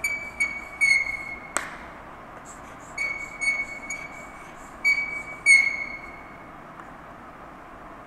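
Chalk squeaking on a blackboard during writing: short, high, squealing strokes in three bursts, with a sharp tap of the chalk about one and a half seconds in. The squeaking stops about six seconds in.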